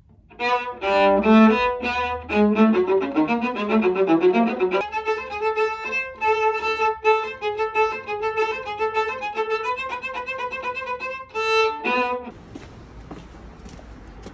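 Violin playing a melody: a quick run of notes over the first few seconds, then slower held notes, stopping abruptly about 12 seconds in.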